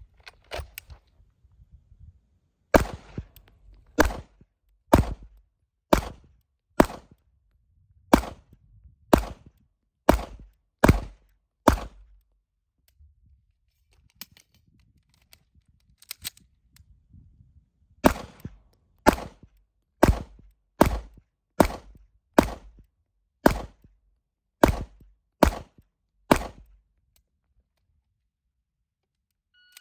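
Handgun shots: ten rounds at a steady pace of about one a second, a pause of about six seconds for an emergency speed reload with two faint clicks near its end, then ten more rounds at the same pace, a measured, unhurried rate of fire.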